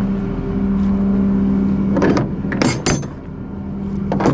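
Flatbed tow truck's engine running steadily. The engine tone drops away about two seconds in, and a few sharp metallic clanks follow as the winch hook and chain on the bed are handled.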